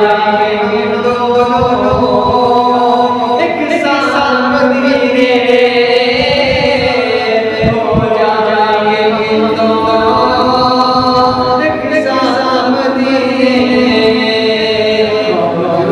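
A man singing a naat, an Urdu devotional poem in praise of the Prophet, solo without instruments, in long held notes that run on almost without a break.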